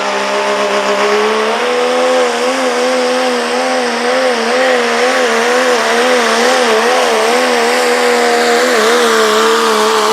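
Diesel pickup truck engine held at high revs under load while pulling a sled, its pitch wobbling rapidly up and down from about a second and a half in and steadying again near the end.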